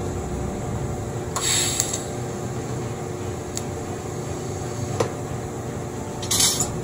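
TIG welder laying a drop of bronze filler: two short bursts of arc hiss, a second or so in and near the end, over the welding machine's steady hum, with a couple of light ticks between them.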